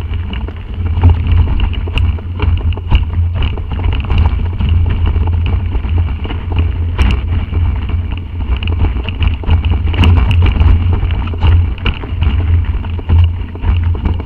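Mountain bike descending a rough dirt downhill trail at speed, heard from a camera mounted on the rider: a steady rumble of wind on the microphone, with frequent knocks and clatters as the bike rattles over bumps and roots.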